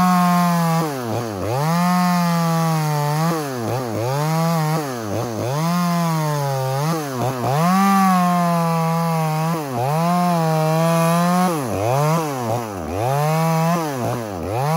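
Small two-stroke chainsaw cutting down into a rotten stump, the engine revving up under load and dropping back about a dozen times, roughly once a second.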